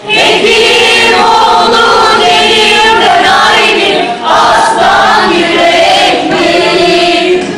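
A group of men and women singing together, loud and continuous, with a short pause for breath about four seconds in.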